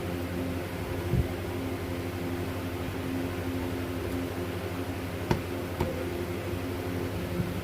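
A steady mechanical hum with a few short, light knocks or clicks over it.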